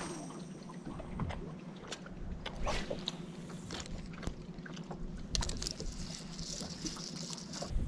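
Small fishing boat on open water: a steady low hum under scattered light clicks and knocks, with a short hiss about five and a half seconds in.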